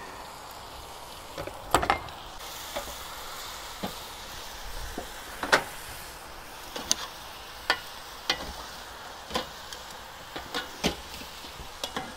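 Lamb pieces sizzling steadily as they brown in a cast iron wok, with scattered sharp knocks and clinks of metal tongs against the meat and wok.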